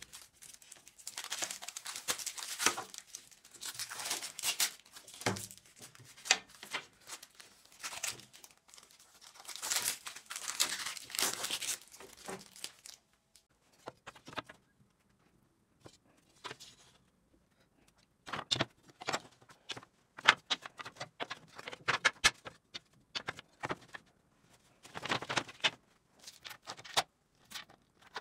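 Masking tape being pulled off wooden slats in long tearing rips through the first dozen seconds. After a short lull come sharp knocks and scrapes as the wooden slats are handled and set down on a plywood board.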